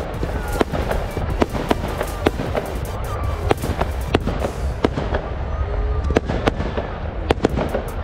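Aerial fireworks bursting in quick, irregular bangs and pops, a few a second, with a short lull about five seconds in.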